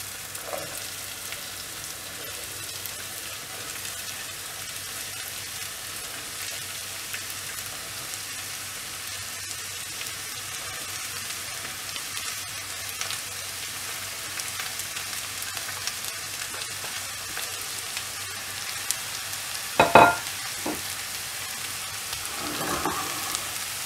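Hot oil sizzling steadily in a saucepan as diced red radish goes in on top of fried onion, tomato and crushed ginger-garlic. A single short knock about twenty seconds in.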